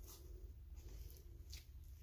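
Metal palette knife scraping and squishing thick acrylic paint across paper: faint, soft strokes, a few of them, one sharper scrape about one and a half seconds in.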